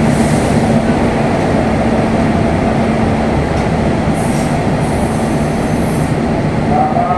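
Passenger train hauled by a GE CC201 diesel-electric locomotive running at the station platform, a steady loud rumble with brief high-pitched wheel squeals about four to six seconds in. A held tone begins just before the end.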